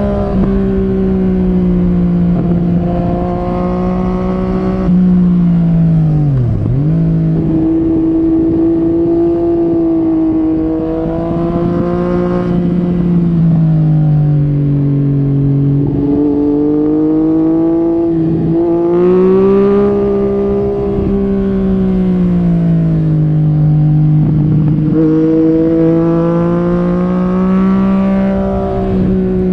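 Yamaha MT-09 SP's 847 cc three-cylinder engine through an Akrapovic Carbon racing exhaust, rising and falling in pitch as the rider accelerates, rolls off and changes gear, with a sharp dip about six and a half seconds in.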